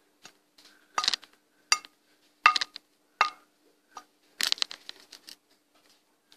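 Sharp knocks of Lego plastic on plastic, about one every three-quarters of a second, then a quicker run of knocks: a Lego barred cell door being banged until it comes open.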